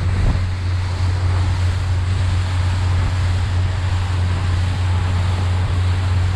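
Outboard motor on a rigid inflatable boat running steadily at speed, a constant low drone under the rush of water along the hull and wind on the microphone.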